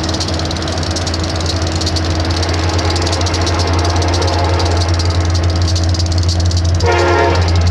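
Union Pacific diesel-electric locomotive running with a deep, steady drone that grows slowly louder as the train approaches. Near the end there is a short blast of the train's horn.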